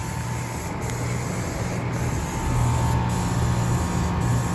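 Bryant Preferred heat pump outdoor unit running in cooling mode: the steady hum of its scroll compressor under the air rush of the condenser fan, with a faint steady whine. The sound gets louder about two and a half seconds in.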